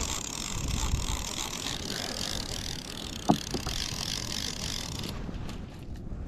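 Baitcasting fishing reel cranked to reel in the line: a steady whirring hiss that stops abruptly about five seconds in. A couple of sharp clicks come a little over three seconds in.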